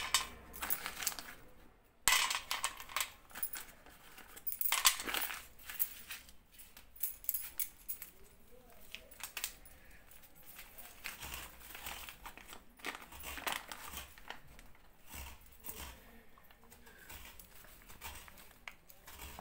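Plastic packet crinkling as batasha sugar drops are taken out, with light clicks and taps of the drops set down on a metal plate. The handling is busiest in the first few seconds and grows fainter later.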